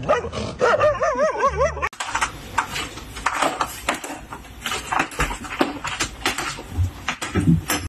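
A dog whines in a high, wavering pitch for about a second and a half. After a cut, a dense run of short scratchy rustles follows: a cat's claws catching on fabric curtains as it climbs them.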